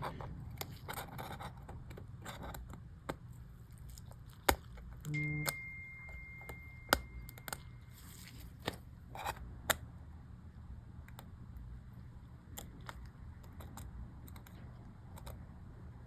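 Scattered small clicks and taps of plastic MacBook keyboard parts, a keycap and its scissor hinge, being handled and pressed into place. The sharpest click comes about four and a half seconds in. A faint high steady tone runs for about two seconds from just after five seconds.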